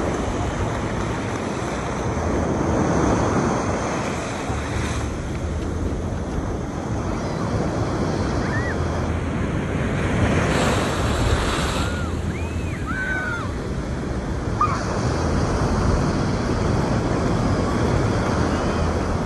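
Ocean surf breaking and washing up the beach, a steady rushing that swells and ebbs, with wind buffeting the microphone.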